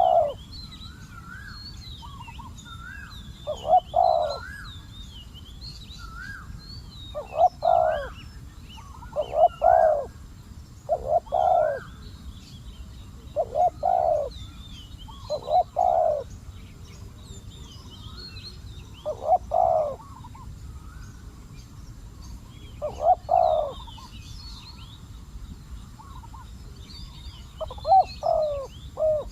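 Spotted doves cooing: short, repeated coo phrases come every two to four seconds. Small birds twitter faintly and high-pitched in the background.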